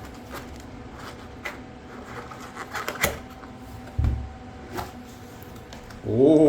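Cardboard box and packaging of a keyboard being opened and handled: scattered light clicks and rustles, with a sharper click about three seconds in and a low thump about a second later.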